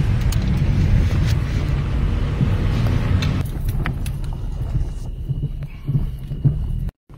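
Car driving, heard from inside the cabin: a steady low rumble of engine and road noise with scattered light knocks. The hiss above the rumble drops away about three and a half seconds in, and the sound cuts out briefly just before the end.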